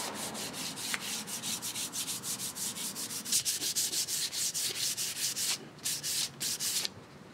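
Sandpaper rubbed by hand along a solid teak table leg in quick back-and-forth strokes, about four a second, breaking off briefly twice near the end before stopping.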